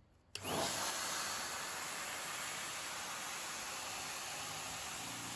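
Compressed air blasting from a blow-gun nozzle onto a wet wheel and tyre to dry them: a steady hiss that starts suddenly about a third of a second in.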